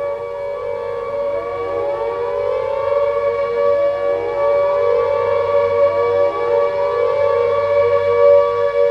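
Air raid siren sounding a steady high wail, with rising sweeps repeating about every second and a half to two seconds and the whole sound slowly growing louder.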